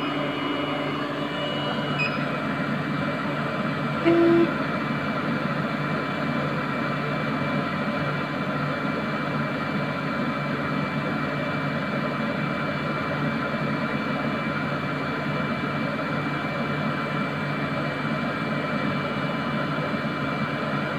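Semi-automatic biochemistry analyser running with a steady hum while it reads a distilled-water blank, with one short low beep about four seconds in.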